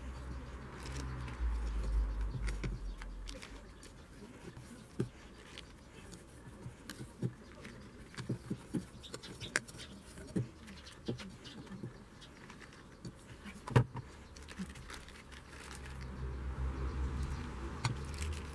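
Spatula scraping thick royal icing (whipped egg white and icing sugar) around a stainless steel bowl and into a plastic zip-lock bag, with many small clicks and taps of utensil on bowl and bag, the sharpest about fourteen seconds in. A low rumble sits under it near the start and again near the end.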